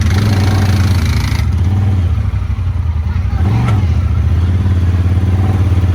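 ATV engine running steadily as the quad is ridden, with a brief rise and fall in engine speed about three and a half seconds in. A hiss runs over the first second and a half.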